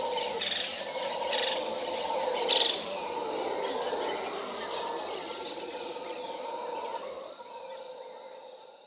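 Insects chirring in a steady high chorus over steady lower tones, fading out over the last few seconds.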